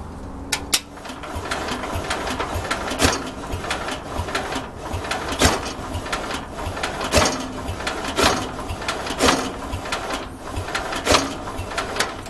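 Bolens 1050 garden tractor's engine being turned over by its electric starter, cranking steadily with a loud thump about once a second. It does not start; the owner thinks the battery is weak.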